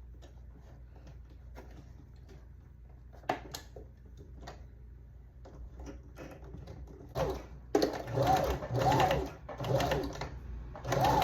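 Janome sewing machine sewing down a hair weft in several short runs, its motor whine rising and falling with each run. Before the runs there are a few seconds of light clicks and handling.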